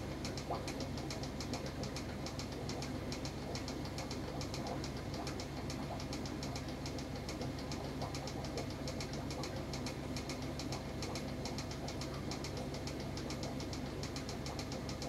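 A small machine humming steadily with a fast, even ticking running through it.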